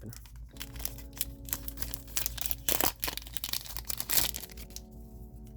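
Foil trading-card booster pack wrapper crinkling and cards being handled, a run of sharp irregular crackles, over faint steady background music.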